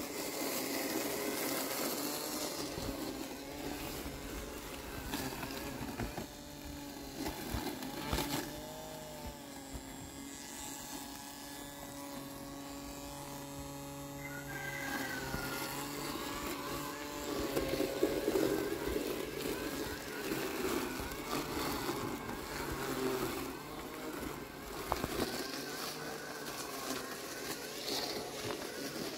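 Landxcape LX790 robot lawn mower's electric blade and drive motors whining steadily as it cuts through tall, wet weeds. The pitch dips and recovers a couple of times as the blade meets thicker growth.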